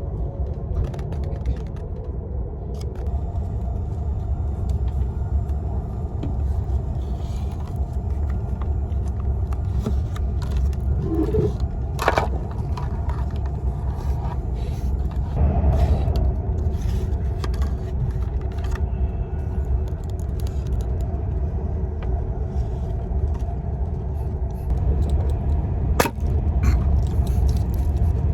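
Steady low rumble of a moving vehicle heard from inside it, with a few sharp clicks and knocks now and then.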